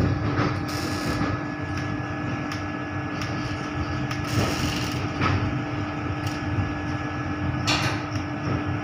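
Steady hum inside the driving cab of a Vande Bharat electric train, with a constant tone, a few knocks and several short hisses.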